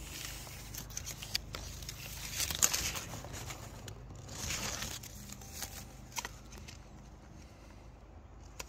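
Mango leaves and plastic plant tags rustling and crinkling as they brush against the phone, in irregular swells with a few sharp clicks.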